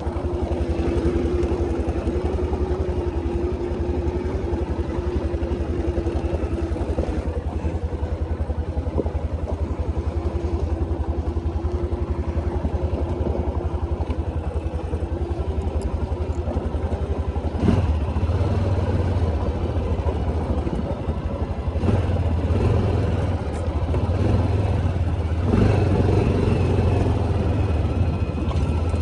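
ATV engine running steadily under way on a dirt trail, with a constant low rumble. There is a sharp knock about 18 seconds in, and the low rumble is louder from then on.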